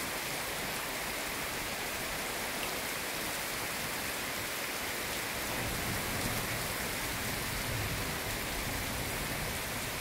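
Steady rain falling on foliage, an even hiss throughout. About halfway through, a low rumble joins in underneath.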